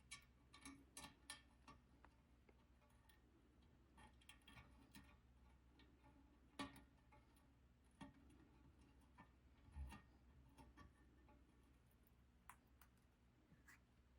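Faint, scattered light clicks and taps of small metal hardware and a screwdriver as the door-glass retaining clips are fitted, with near silence between them.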